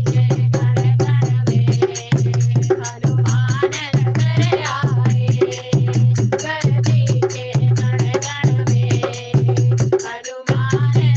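Devotional Hindi bhajan music to Hanuman: a steady deep drum beat about once a second under fast, dense percussion, with a voice singing in places.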